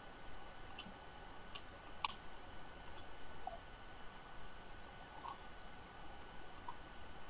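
Faint computer mouse clicks, about seven scattered over several seconds, over a steady low hiss.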